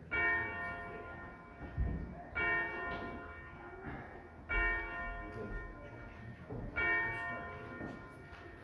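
Church bell tolling four slow strokes, about two and a quarter seconds apart. Each stroke rings on with many overtones and fades before the next.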